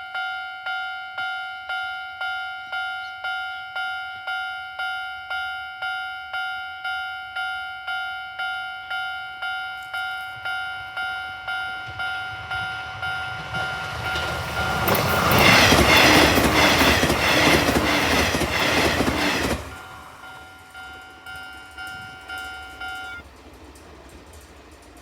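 A Japanese level-crossing warning bell dings steadily, about twice a second. A Nishitetsu electric train passes over the crossing, loud for about five seconds around the middle. After the train has gone the bell rings on for a few seconds, then stops.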